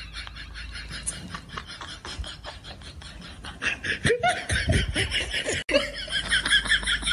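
A person laughing, getting louder from about four seconds in, over quick, repeated splashing from a dog pawing at the water in its bowl.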